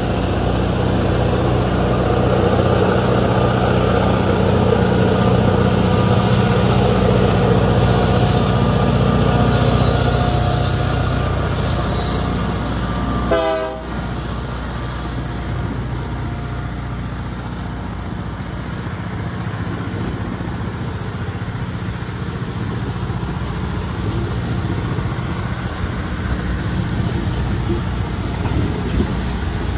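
Pioneer Valley Railroad diesel locomotive running as it comes up and passes, with thin high wheel squeals over its engine drone. A brief wavering tone sounds about halfway through. Loaded freight cars (open-top hoppers) then roll by with a steady rumble of wheels on rail.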